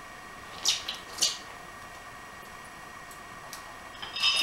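Light metallic clicks and clinks of an air impact wrench and loosened transmission cover bolts being handled: two sharp clicks about a second in, two faint ticks later, and a ringing metal-on-metal clink near the end.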